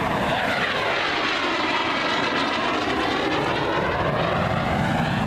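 Aermacchi MB-339 jet trainer's turbojet engine running in a low flyby. A steady loud rush comes with a swirling, sweeping sound as the jet passes.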